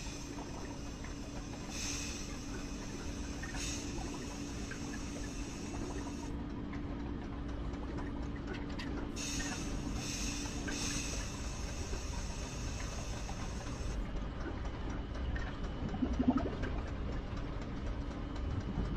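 Machinery sound effects: a steady low rumble with a hum, and hissing like escaping steam that comes in two long stretches, pulsing every couple of seconds. A short louder knock-like burst comes near the end.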